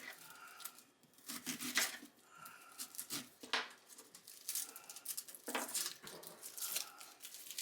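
An onion being peeled and cut by hand: papery skin crinkling and tearing, with irregular crunchy strokes.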